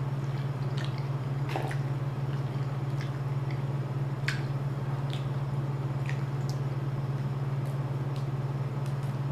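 Eating sounds: scattered wet clicks and squishes as cooked shrimp is chewed and peeled by hand, over a steady low hum.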